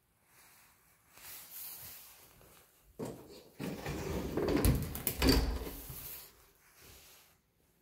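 White panel closet doors being pulled shut over a stacked washer-dryer: a sliding, scraping sound that starts suddenly about three seconds in, with two sharp knocks a little over a second later, then fades.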